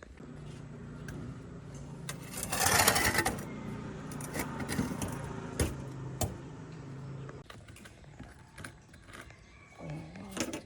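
Small metal parts clinking, with a steady machine hum that stops about seven seconds in and a louder noisy burst near the three-second mark.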